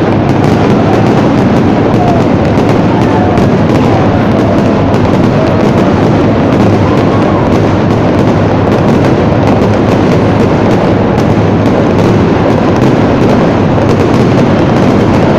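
Fireworks going off in a continuous dense barrage, the bangs and crackles running together into one loud, steady roar of noise.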